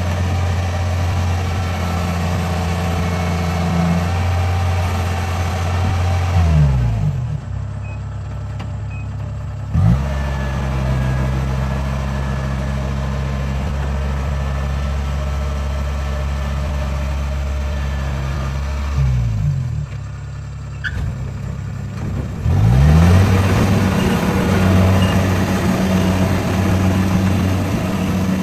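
Rice combine harvester's diesel engine running under load with the machinery clattering over it. Twice the clatter drops away for a few seconds as the engine is throttled down, then the engine revs back up and the clatter returns.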